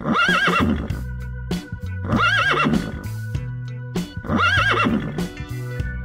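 Horse whinnying, the same wavering whinny heard three times about two seconds apart, over background music with a steady bass line.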